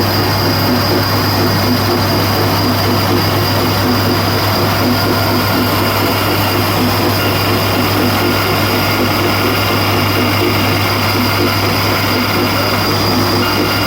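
Band saw running steadily: a constant low hum with a thin high whine over it, unchanged throughout.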